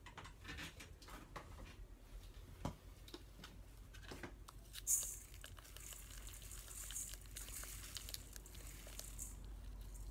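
Salt being sprinkled over blood cockles in a stainless steel bowl, to purge them of sand: scattered small clicks and knocks, then a faint pattering hiss of grains on the shells through the second half.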